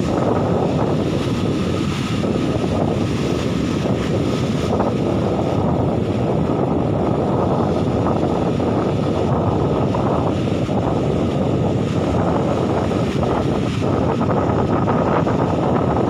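Sea surf breaking and washing over rocks, mixed with strong wind blowing on the microphone, at a steady level.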